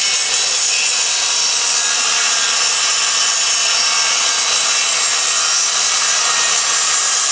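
Circular saw running steadily under load as it cuts along plywood, shaving the veneer off a thin strip.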